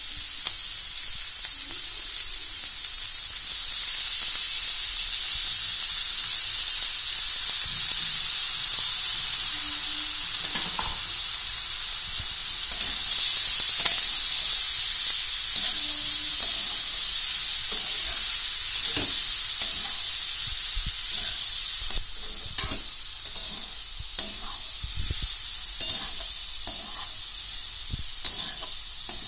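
Leftover cooked rice frying with egg and vegetables in a hot oiled wok: a steady sizzle. It is stirred with a metal spatula, whose scrapes and taps on the pan come more often in the second half.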